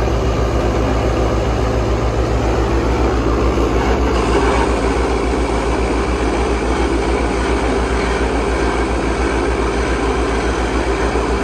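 JCB Loadall telehandler's diesel engine running hard under load with a steady low throb, as it drags a stuck tractor trolley backwards.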